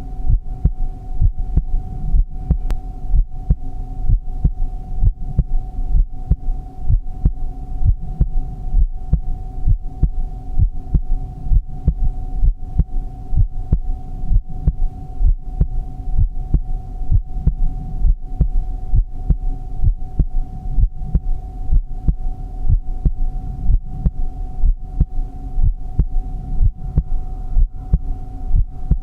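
Heartbeat: an even, steady rhythm of low thumps, over a continuous hum.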